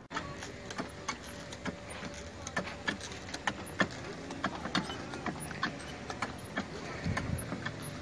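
Irregular knocks and clicks of footsteps and handling noise, a few a second, from a person walking across a farm yard carrying a spray hose.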